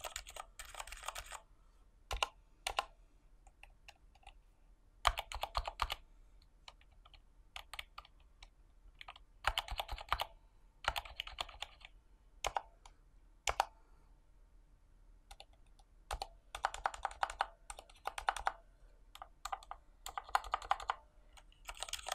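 Typing on a Durgod Venus 60% mechanical keyboard fitted with Cherry MX Silent Red switches: quiet, damped keystrokes in quick runs with short pauses between.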